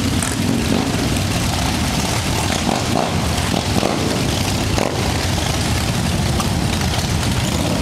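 Many V-twin cruiser motorcycles running together, a loud, steady, dense engine rumble.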